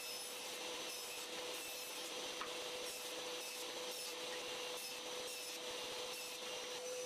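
A woodworking power tool's motor running at a steady pitch while wood rubs and scrapes against it. The motor is switched off at the end and winds down.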